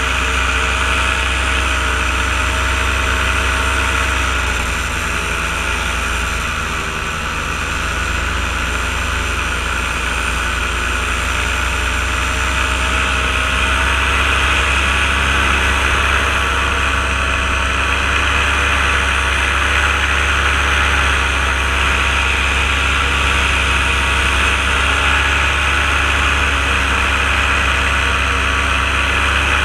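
Paramotor engine and propeller running steadily in flight, its pitch wavering slightly.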